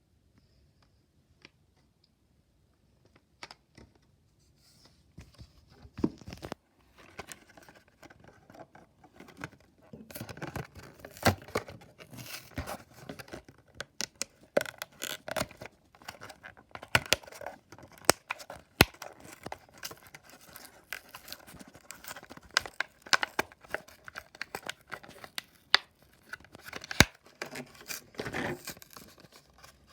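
Hot Wheels blister-card packaging being torn open by hand: cardboard tearing and plastic crinkling, with irregular clicks and snaps. Nearly silent at first, with scattered clicks a few seconds in, then busy handling from about ten seconds on.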